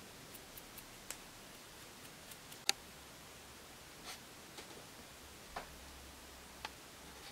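Quiet room with a few light clicks and taps, one sharper click about two and a half seconds in: a small jar and long acrylic fingernails set down on a glass work plate.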